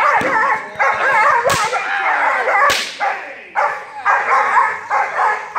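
Young German Shepherd barking and yipping rapidly and excitedly, in high-pitched calls, as it lunges on the leash at a decoy during protection training. Two sharp cracks come about a second apart, near the middle.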